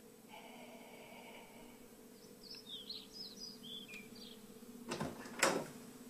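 Small birds chirping outside in a few quick short calls, then two sharp door sounds about half a second apart near the end, the second the loudest.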